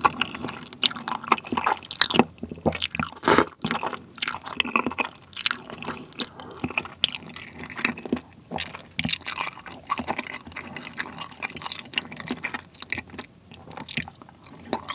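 Close-miked eating: a man slurps noodles in a thick spicy cream sauce, with one loud slurp about three seconds in, then chews soft, sticky rice cakes and pasta with many small wet smacks and clicks.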